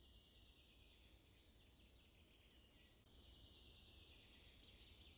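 Near silence: faint forest ambience with high, short, repeated chirps, a little louder from about three seconds in.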